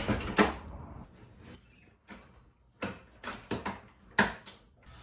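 Handling and assembling a small hinged object: a series of sharp clicks and knocks, with a brief high squeak about a second and a half in.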